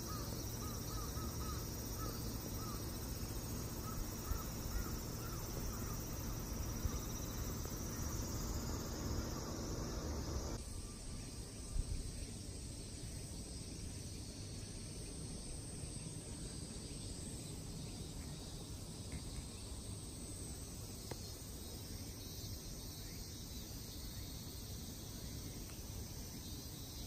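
Outdoor ambience of insects chirping steadily over a low rumble, with a run of short bird calls in the first part. About ten seconds in the sound changes abruptly to a quieter, thinner background of the same kind.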